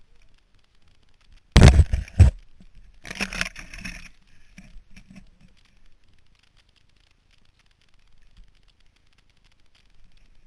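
Dirt bike being handled over a fallen log with its engine not running: a loud rough scraping clatter about a second and a half in, lasting under a second, a second weaker scrape a moment later, then faint rustling.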